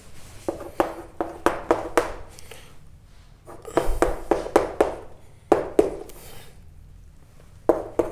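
Quick clusters of sharp taps on a hard surface, four to six at a time with short pauses between, as of hurried writing.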